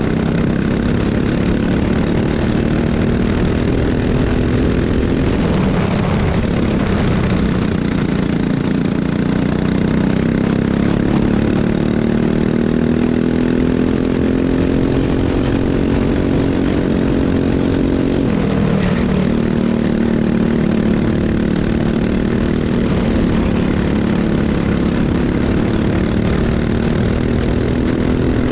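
Racing kart engine running hard. Its pitch drops sharply twice, about six seconds in and again about nineteen seconds in, then climbs steadily as it accelerates out of each corner.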